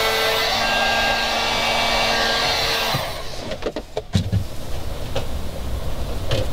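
Electric heat gun blowing steadily on the wiring's heat-shrink crimp connectors, cutting off about three seconds in. It is followed by a few clicks and knocks of handling.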